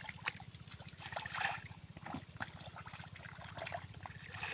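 River water splashing and trickling in short irregular bursts as hands work in shallow water, the largest splash about a second and a half in, over a steady low hum.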